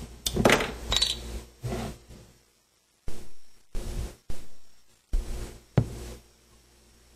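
Crown cap being pried off a bottle of bottle-conditioned homebrew beer, with a brief hiss of released carbonation about a second in. Several short knocks and clinks of the glass bottle follow, with a sharp click near the end.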